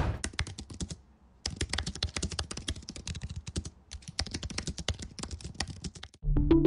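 Rapid typing on a computer keyboard: a fast run of key clicks with a short pause about a second in. Music comes in just before the end.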